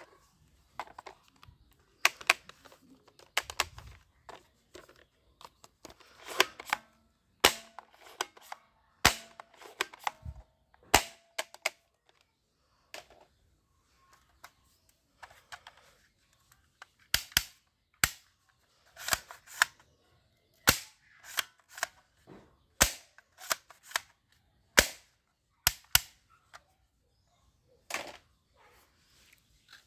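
Toy guns firing: many sharp snapping shots at irregular intervals, some in quick pairs, with a quieter stretch of a few seconds in the middle.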